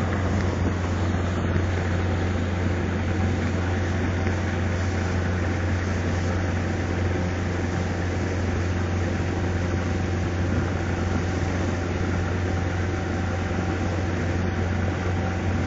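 Motorboat engine running at a steady speed while towing a wakesurfer: a constant low drone under an even wash of noise.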